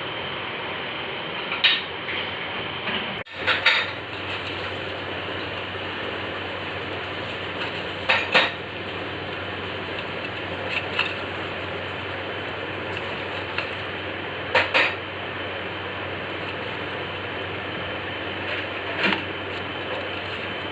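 A metal spoon or ladle clinking and knocking against a cooking pot every few seconds, some strikes doubled, over a steady hiss.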